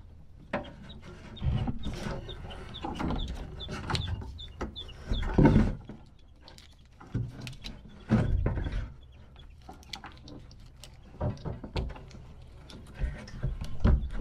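Young pullet chicks peeping in their boxes: a run of short, high peeps a few seconds in. Irregular knocks and rattles sound over a low vehicle rumble.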